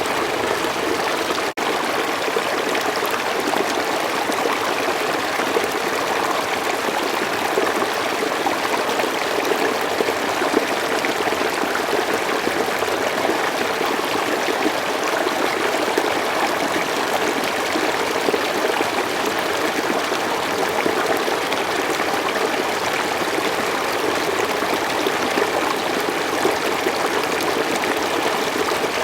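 Slow forest stream flowing steadily, with a momentary gap in the sound about a second and a half in.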